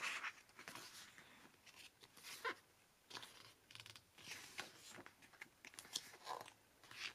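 Faint rustles and brushes of thick, watercolor-like photobook pages being turned by hand, a few short paper sounds spread out over quiet.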